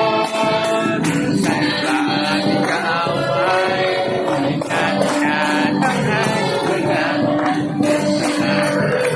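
Praise and worship song: voices singing a held melody over instruments, with high percussion keeping a steady beat.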